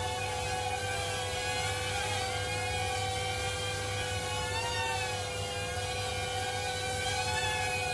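Small XK X100 quadcopter's motors and propellers whirring in flight, the pitch wavering up and down as the motors adjust to hold it steady, over a constant hum.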